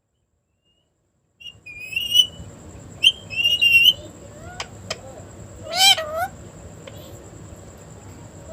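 Parrot calling: after about a second and a half of silence, a few short warbling chirps, then a louder, longer squawk about five seconds in. A faint steady high tone and hiss run behind the calls.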